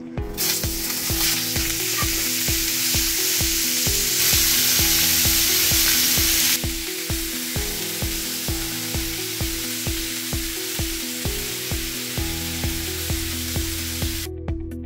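Raw pork pieces sizzling in hot oil in a frying pan as a spatula turns them; the sizzle starts as the meat goes in, is loudest about four seconds in, then drops suddenly to a steadier level. Background music with a steady beat plays underneath.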